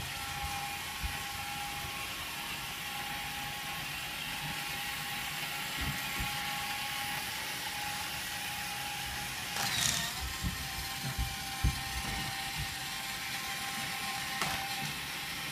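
Hot Wheels remote-control toy car's small electric motor and gears whining steadily as it drives on a hardwood floor, with a few soft thumps between about ten and twelve seconds in.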